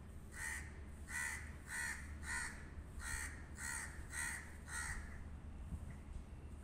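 Crow cawing: eight harsh caws in two runs of four, about two a second, with a short pause between the runs.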